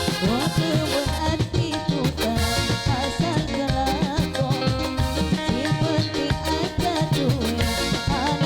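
Burok troupe band music: lively dance music with a steady drum beat under wavering melody lines and held notes.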